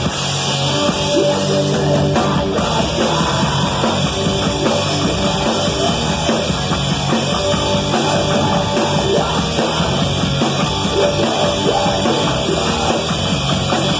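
Live punk-hardcore trio playing loud and fast: distorted electric guitar, bass guitar and drum kit in a dense, unbroken wall of sound.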